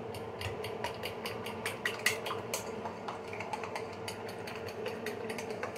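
Quick, irregular clicking of a metal utensil against a bowl, about four to six strokes a second, as when beating eggs with a fork, over a steady low hum.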